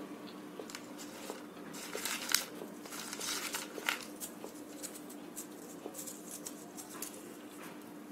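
Crisp crackling and crunching of papdi gathiya, a fried gram-flour snack, as it is picked from the plate and chewed, loudest a couple of seconds in. A steady background hum runs underneath.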